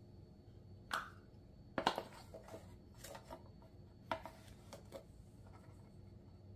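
A few soft clicks and taps of a metal measuring spoon against a plastic spice container while onion powder is scooped out.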